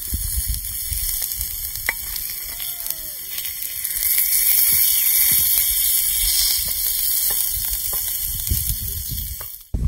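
Meat and red onions sizzling on a hot flat stone over a wood fire, a steady hiss that grows louder a few seconds in and stops abruptly near the end.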